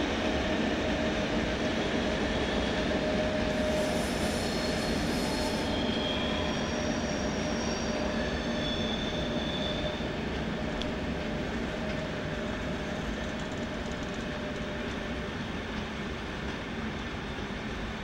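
Train of passenger coaches rolling away over station switches, the steady rumble of the wheels slowly fading. Thin, high wheel squeals sound from about four seconds in until about ten seconds in.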